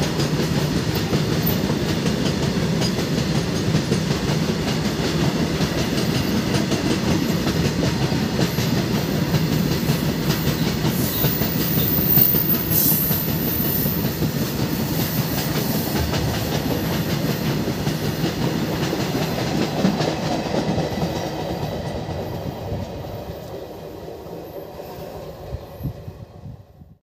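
Loaded BOXN open freight wagons rolling past, the steady noise of steel wheels running on the rails. Over the last few seconds it fades as the tail of the train moves away.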